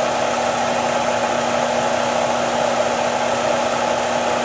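Vibrating UHF gold concentrator table running steadily: a constant hum with a steady low tone, under an even hiss of water washing across its ribbed deck.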